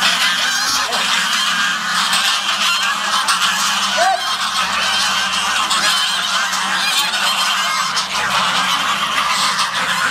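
A large flock of domestic ducks quacking loudly and continuously, many calls overlapping into one steady clamour.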